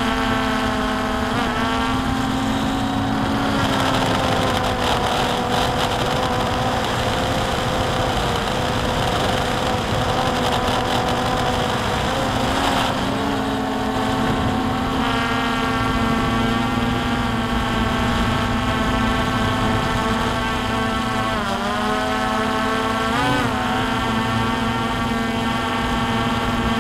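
Drone's electric motors and propellers whining steadily, picked up by its onboard camera. The pitch dips and rises briefly about four times as the motors change speed.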